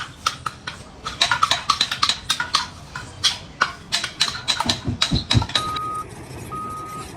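A fast, irregular run of sharp knocks with a metallic ring, about three a second, followed near the end by two short steady beeps.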